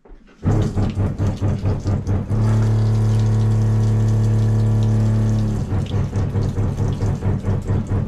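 Wall-mounted electric water pump running loudly with a deep hum, water pouring from the kitchen faucet. The hum stutters rapidly for the first couple of seconds and again past halfway, running steady in between; the stutter comes only when water is drawn through the hot side, which the owner suspects is the water heater restricting the flow.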